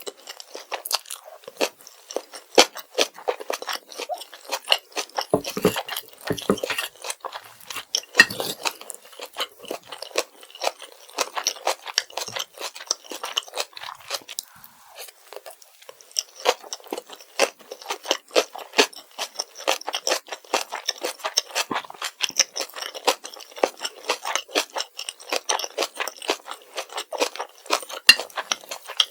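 Close-miked ASMR chewing of kimchi fried rice: a dense, continuous run of crunchy bites and chews.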